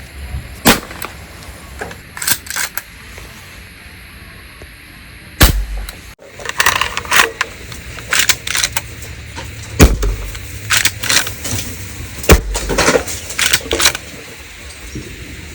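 A C10a spring-powered steel BB pistol, 1911 style, fired several times a few seconds apart: sharp shots, three of them loudest, with lighter clicks and rattles of handling and cocking between them.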